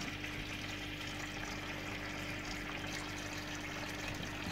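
Water trickling and running steadily, as aquarium water flows out through a siphon hose, with a low steady hum underneath.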